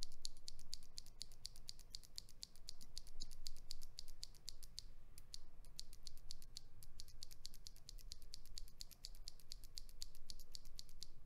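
Stock, unlubed Gateron Yellow linear mechanical keyboard switches pressed over and over, making a rapid run of sharp clacks with a short break about five seconds in.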